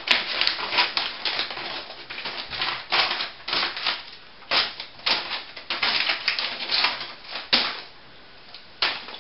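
Scissors cutting a sheet of paper in many quick, irregular snips, with the paper rustling.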